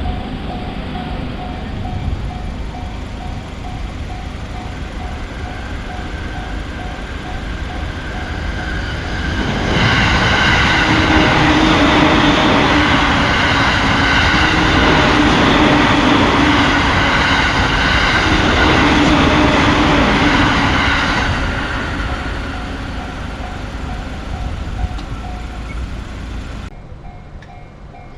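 Japanese railroad crossing alarm ringing its rapid, repeating electronic dings while an electric train passes through, its rush and rail noise swelling loud about ten seconds in and fading away over the next dozen seconds. The sound changes abruptly shortly before the end, with the crossing alarm still ringing.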